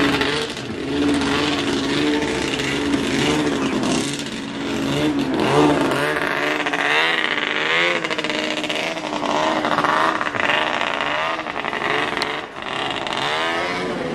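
Vintage snowmobile engines running, one being revved so that its pitch wavers up and down, more strongly in the second half.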